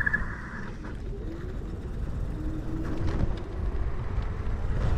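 Kaabo Mantis dual-motor electric scooter riding, with a low rumble of wind on the microphone and tyres that eases as the scooter slows to a crawl and builds again as it speeds back up. A brief high-pitched tone sounds in the first second.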